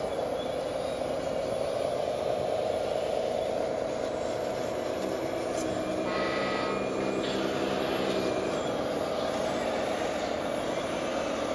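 Radio-controlled construction models (wheel loader and trucks) running, with a steady mechanical whine from their drive motors and gears. About six seconds in, a short spell of higher-pitched tones joins it.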